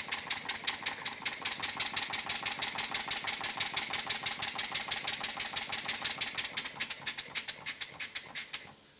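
Stuart Models beam engine running on compressed air: a fast, even chuffing of exhaust puffs, about eight a second, which slows and stops shortly before the end as a hand brakes the flywheel. The valve timing is nearly right but still needs a little tweaking.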